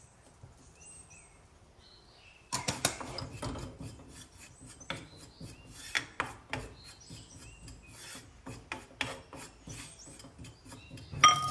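Pestle crushing and grinding dry-roasted cumin, cloves and mustard seeds in a mortar, starting about two and a half seconds in. It is a run of uneven strokes, several a second, that goes on until near the end.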